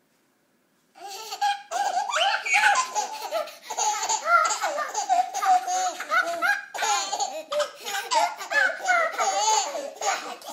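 Baby laughing in repeated high-pitched bursts, starting about a second in and running on without a break.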